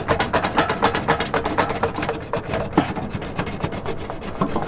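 A saw cutting back the metal headlight bracket behind a Honda Civic's front wheel to make room for the tyre. It gives a fast, uneven run of scraping and rasping strokes.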